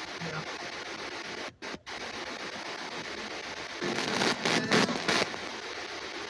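Spirit box scanning through radio stations: a steady hiss of static that cuts out twice, briefly, about a second and a half in, with louder choppy bursts of static about four to five seconds in.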